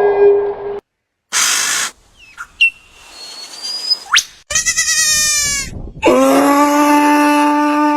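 A run of short, separate animal calls: a brief noisy burst, a quick rising whistle, a wavering call, then a long, steady call of about two seconds near the end.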